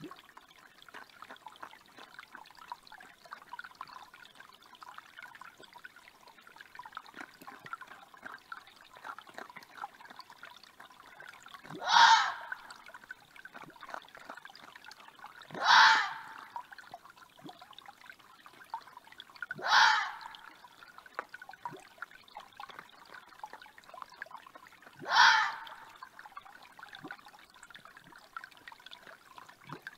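Red fox giving four short, harsh, loud protest calls a few seconds apart, driven off its food by raccoon dogs. A forest creek trickles steadily underneath.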